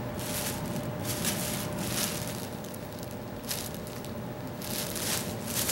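Clear plastic bag around a folded T-shirt crinkling and rustling as it is handled, an irregular run of soft crackles.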